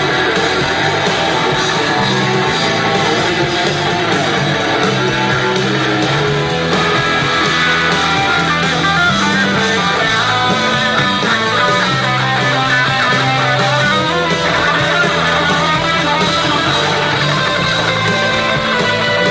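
Live rock band playing: a bass guitar holding low notes under electric guitar lines.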